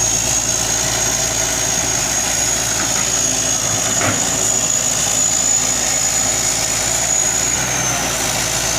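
Hitachi excavator's diesel engine running steadily, with a thin high whine held over it that dips slightly near the end. A brief knock about four seconds in.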